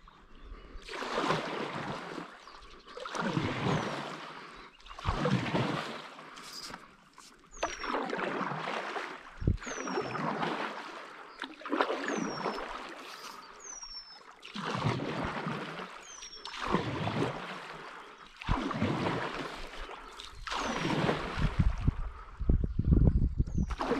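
Stand-up paddleboard paddle strokes in river water: a swishing splash about every two seconds, in a steady rhythm.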